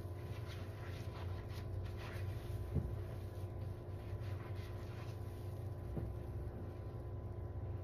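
A soap-soaked sponge squeezed and pressed by hand in thick suds, making soft wet squishing and fizzing of foam, with two sharper squelches about three seconds in and near six seconds.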